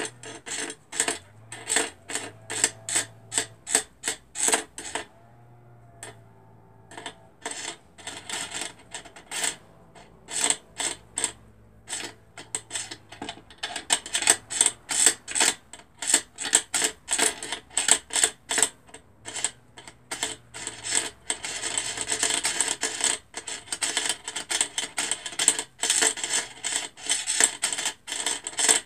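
Thread being wound onto a sewing-machine bobbin by hand, with quick repeated rubbing strokes of fingers and thread. About five seconds in the strokes pause for a few seconds, then resume and grow denser and louder toward the end.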